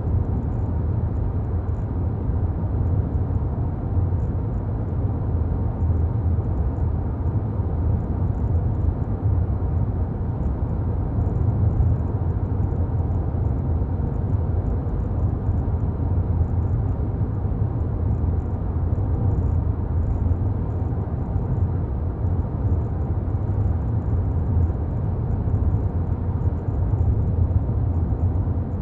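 Steady low rumble of a car driving along a town road, tyre and engine noise heard from inside the cabin.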